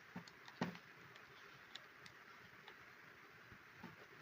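Near silence, with a few faint clicks from handling the drill, the clearest a little over half a second in.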